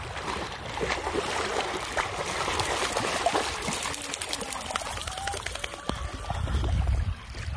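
Shallow lake water splashing and lapping as two dogs wade through it, with many small splashes over a steady trickling wash.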